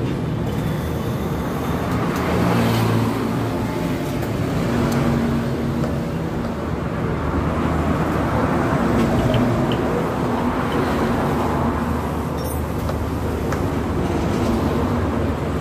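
Steady low rumble of motor traffic, with a few faint clicks near the end.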